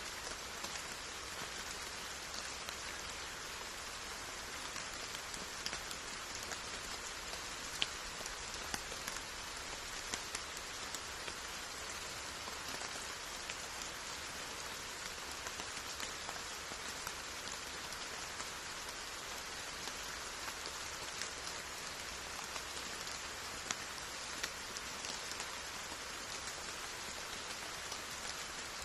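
Steady rain falling: a dense, even hiss with scattered sharper drop ticks.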